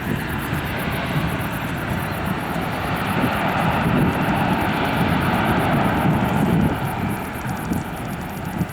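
Airliner engines running as the plane passes: a loud, steady rush that swells about three seconds in, peaks, then eases off near the end.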